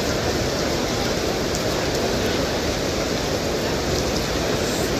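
Heavy rain falling steadily, a constant even hiss.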